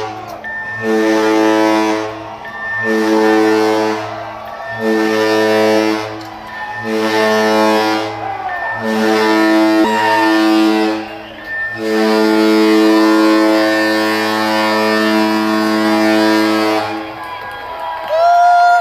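Cruise ship's whistle, doubled by the alarm over the PA system, sounding the general emergency signal: a run of short horn blasts followed by one long blast of about five seconds. This is the demonstration of the muster alarm given during the safety briefing.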